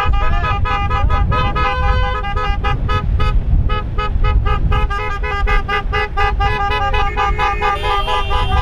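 Many car horns honking together in a convoy, short repeated beeps at several different pitches overlapping, over a steady low rumble.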